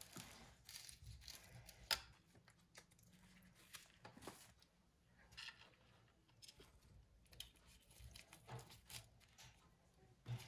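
Faint rustling of lettuce leaves and light clicks of a knife blade on a plate as the leaves are tucked under a mound of salad, with the sharpest click about two seconds in.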